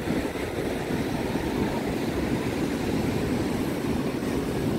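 Steady rushing noise of surf breaking on a sandy beach, mixed with wind on the microphone.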